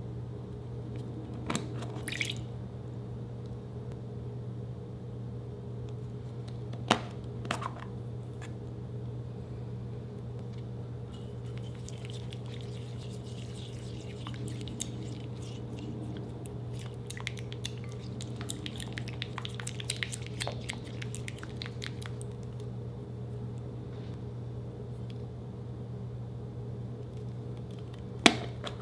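A plastic surprise egg clicking open over a glass bowl, then liquid poured in and a silicone spatula stirring glitter through it with fine wet crackling and scraping for several seconds. Near the end a sharp plastic snap, the loudest sound, comes as the next egg is opened. A steady low hum runs underneath.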